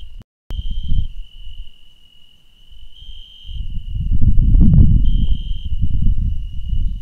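A cricket-like insect trilling steadily and continuously at one high pitch, swelling a little every two seconds or so. Under it there is low, crackly rumbling noise that fades after the first second and builds up again from about four seconds in, with a brief dropout near the start.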